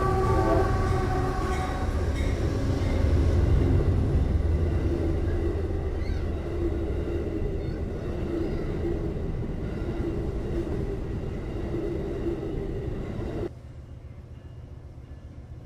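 Train rumbling and rattling past on the rails, opening with a held multi-note horn chord that fades over the first two seconds. The rumble cuts off suddenly about thirteen seconds in, leaving a quieter low hum.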